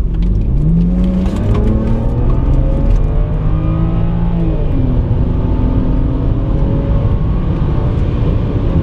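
BMW 335i's N54 twin-turbo inline-six, muffler deleted, under hard acceleration: the engine note climbs, drops sharply at a gear change about halfway through, then pulls on again over a heavy exhaust rumble.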